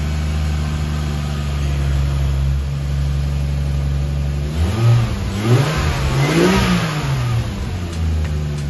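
Turbocharged Lexus IS300's 2JZ-GE straight-six running at a steady idle, with a few quick revs up and back down about halfway through before it settles back to idle.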